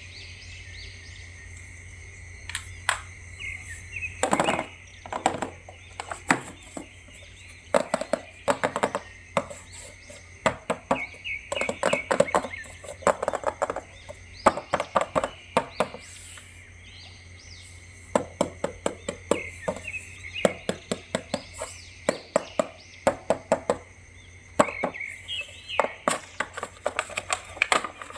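Irregular plastic clicks and taps, coming in quick clusters with a short lull in the middle, from a toy action figure and its packaging being handled and unboxed, over a steady background hum.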